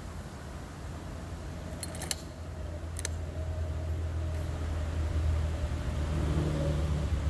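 A steady low rumble that builds up over the last few seconds, with a few light metallic clicks about two seconds in and one more about a second later.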